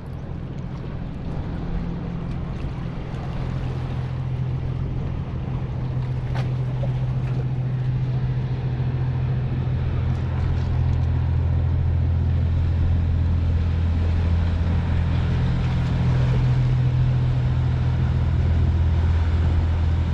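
Motorboat engine running with a steady low drone that grows gradually louder, over a background of wind and lapping water.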